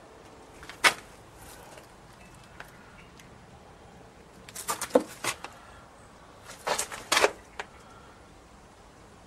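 A sharp click about a second in, then two short clusters of quick clicks and knocks around five and seven seconds in, over faint steady background noise.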